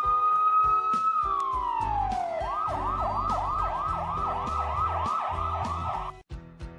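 Police car siren: a long wail that holds, then falls, then switches to a fast yelp of about three sweeps a second that cuts off suddenly near the end.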